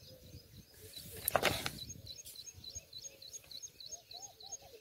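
A small bird chirping faintly in a quick repeated series, about three high chirps a second, with lower arching calls near the end. A brief rustle about a second and a half in is the loudest sound.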